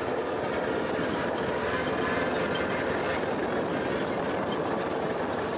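Vehicle engine running steadily, heard from on board while driving slowly along a bumpy dirt track.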